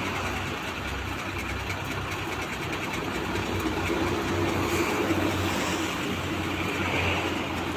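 Truck engine idling steadily with a low, even hum, a little louder about halfway through.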